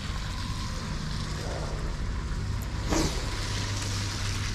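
Low, steady hum of a car engine idling nearby, with a single sharp click about three seconds in.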